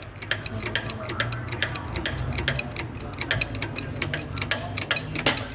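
Irregular light metallic clicks and ticks, several a second, as a car wheel bearing is turned and handled by hand, over a steady low hum.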